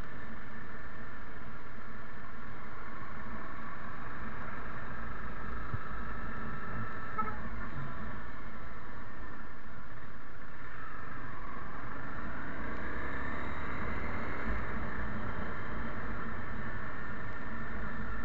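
Honda CBR250 motorcycle engine running at low speed through town, heard from the rider's seat with wind noise over the microphone. The engine pitch climbs about eleven seconds in as it speeds up.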